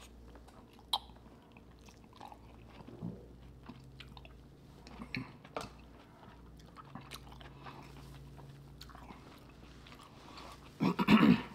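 A person chewing and biting a seafood boil at close range: soft wet mouth noises with scattered sharp clicks. Near the end comes a short loud voice-like sound.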